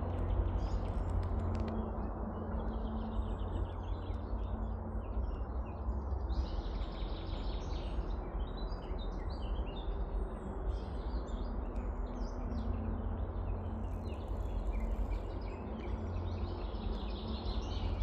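Several songbirds singing and chirping in quick overlapping phrases, over a steady low rumble.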